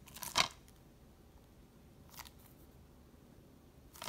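A shrink-wrapped plastic DVD case being handled: a short crackle of plastic just after the start, a fainter one about two seconds in, and another near the end.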